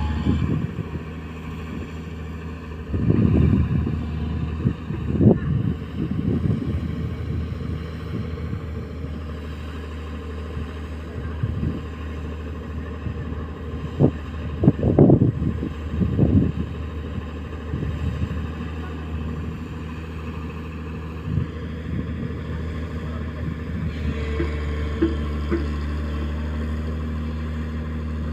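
Excavator's diesel engine running steadily under a low hum, with short louder bursts of low rumbling and knocking at intervals, the strongest cluster about halfway through.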